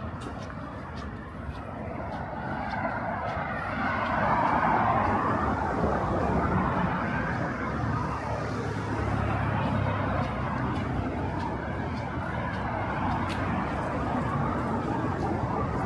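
City street traffic: motor vehicles running and passing, with one passing louder about four to six seconds in.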